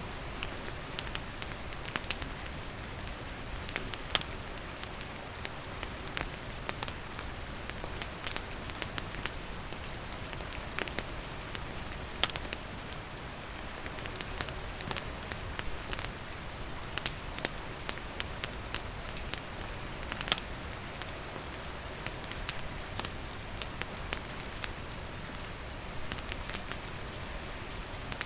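Steady rain falling on surfaces mixed with a wood campfire crackling, with frequent sharp pops and snaps scattered through it.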